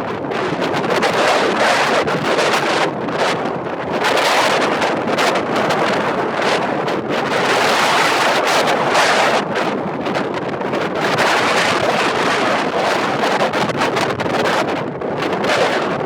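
Strong wind buffeting the microphone in gusts: a loud, rough rushing that surges and eases every second or two.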